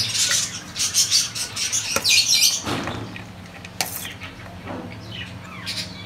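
Budgerigars chirping and chattering, dense for the first two and a half seconds and then sparser, with a few sharp clinks of a metal spoon against the feed bowls.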